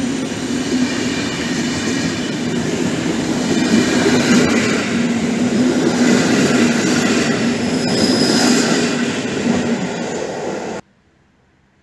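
Intercity passenger carriages running past close by at speed, a steady loud rolling rumble with faint wheel clatter and a thin wheel squeal about eight seconds in. The sound cuts off suddenly near the end.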